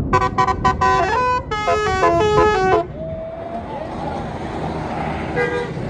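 Tour bus basuri telolet multi-tone horn: a few short staccato toots, then a quick melodic run of changing notes for about a second, over a bus engine's rumble. A single brief toot sounds again near the end.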